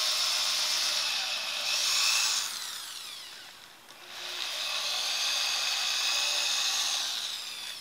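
DeWalt electric drill with a 1/4-inch bit drilling through a rifle stock to join the holes drilled from each side. The motor runs with a steady whine, winds down about two and a half seconds in, starts again about a second later and runs until it winds down near the end.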